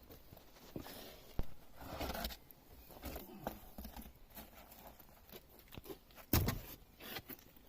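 Scattered handling noises: short knocks, scrapes and crunches, with one louder knock about six seconds in.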